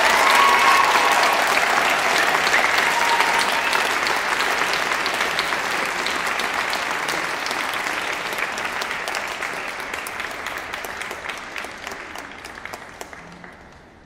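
Arena audience applauding after a figure skating performance, a dense patter of clapping that slowly dies away over the last few seconds.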